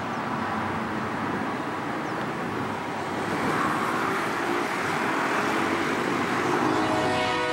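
Steady road traffic noise from cars on a multi-lane highway. About seven seconds in, an approaching diesel freight locomotive's horn begins to sound, a chord of several steady tones.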